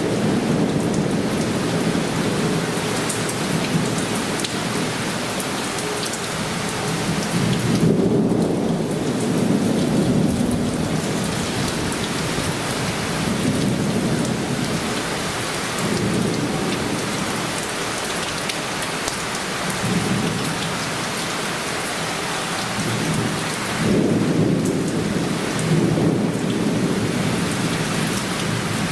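Torrential downpour hissing steadily on surfaces, with thunder rolling and rumbling in repeated low swells, heaviest about a third of the way in and again near the end.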